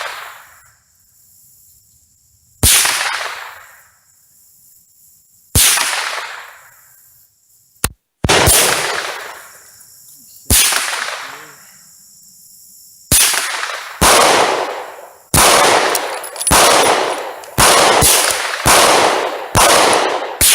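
Rifle gunshots on an outdoor range, about a dozen, each followed by a long echoing tail. They come a few seconds apart at first, then about one a second over the last few seconds.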